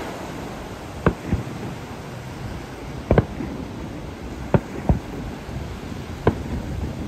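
Aerial firework shells bursting over the sea: about seven sharp bangs, some in close pairs, over a steady wash of surf.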